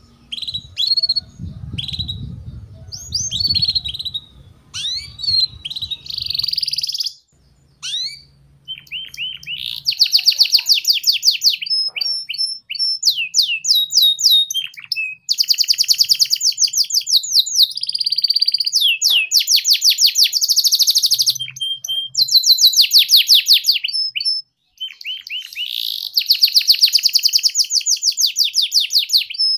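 Canary singing. For about the first ten seconds it gives scattered chirps and short twitters, then loud, rapid trills and rolls in long runs with only brief pauses.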